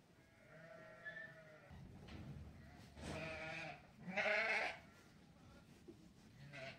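Sheep bleating in a flock of lambs and ewes. A faint bleat comes about a second in, then two loud, long bleats follow each other around three and four seconds in.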